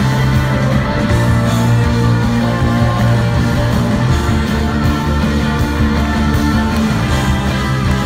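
Rock band playing live at full volume, an instrumental passage without singing, with guitars and drums over sustained low bass notes.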